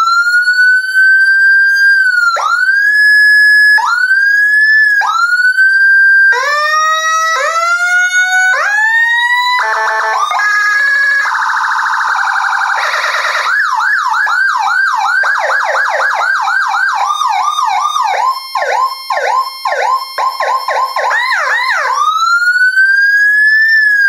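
CJB100BD electronic siren playing Whelen HHS tones in program mode, cycling automatically through its patterns. Repeated rising wails give way about six seconds in to stepped rising sweeps, then a rapid alternating tone, then fast yelping sweeps several times a second, and near the end a slow rising wail.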